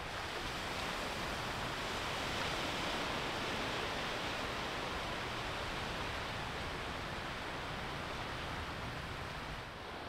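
Steady wash of ocean surf: an even hiss with no separate waves standing out.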